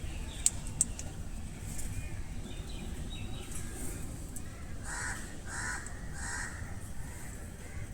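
Bird giving three harsh, caw-like calls in quick succession, a little past halfway, after two sharp clicks near the start.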